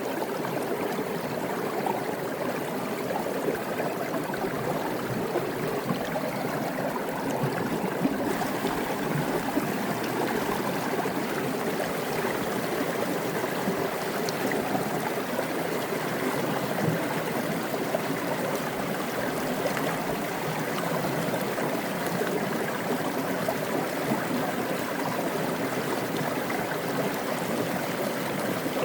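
Mountain creek water cascading and splashing down a rock, a steady rush with small flickers of trickling and gurgling.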